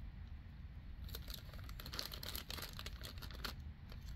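Plastic packaging crinkling and crackling as small tools are handled and unwrapped, the crackles growing busier about a second in.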